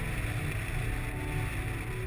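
Steady wind buffeting the camera microphone on a hang glider in flight: a continuous low rumble with airflow hiss over it.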